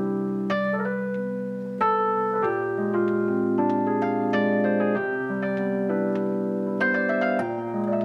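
Solo piano playing a slow piece: sustained chords with single melody notes struck above them, the harmony changing every second or two.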